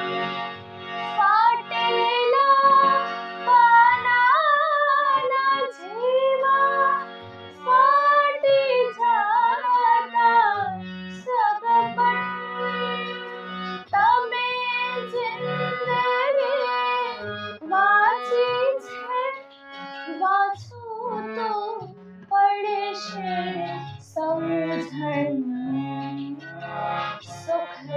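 A female voice singing a Gujarati geet, its melody gliding and ornamented, over instrumental accompaniment with steady low notes.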